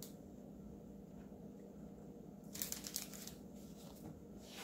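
Paper rustling and crinkling in two short bursts, about two and a half seconds in and again near the end, as the paper under the celery snacks is handled, over a steady low hum.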